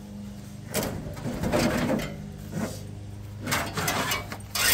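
Old truck bench seat being pulled out of a steel cab: a series of irregular scrapes and knocks as it drags and bumps against the floor and door frame, over a steady low hum.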